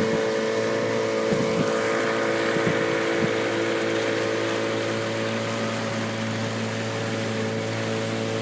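Outboard motor running at a steady speed, pushing the boat along.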